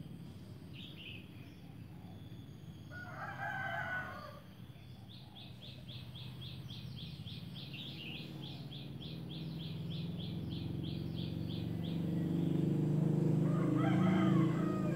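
A rooster crowing twice, about three seconds in and again near the end. Between the crows comes a fast run of high chirps, about four a second, and a low rumble grows louder toward the end.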